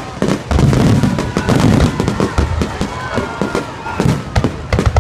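Fireworks display: deep booms of shells bursting mixed with dense, rapid crackling, plus a few short wavering tones.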